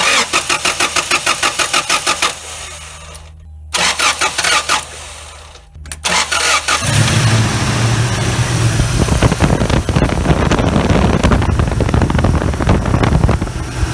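Toyota Tacoma's 2.7 L 3RZ four-cylinder engine being cranked by the starter in two rhythmic bursts with pauses between. On a third short try, about seven seconds in, it catches and settles into a steady cold-start run. This is the first start on newly fitted 440cc injectors.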